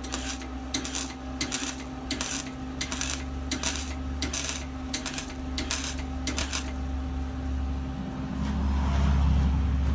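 Electric welder stitch-welding a race car's door seams: about ten brief crackling arc bursts, each a fraction of a second, spaced about two-thirds of a second apart over a steady electrical hum. The hum grows louder near the end.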